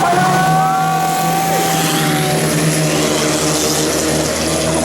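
Turbo-diesel longtail racing boat engine running hard at high revs, with a steady high-pitched turbo whine over the engine note.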